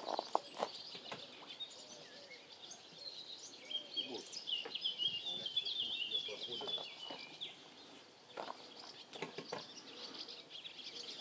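A small songbird warbling and chirping, strongest through the middle, over scattered light knocks of wooden boards being handled and set on concrete blocks.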